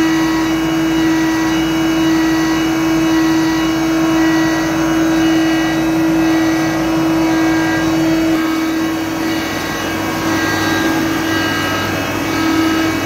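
Bütfering AWS-C 1100 wide belt sanding machine running with a loud, steady hum while a chipboard panel is fed in on its conveyor belt. The low rumble eases about eight seconds in.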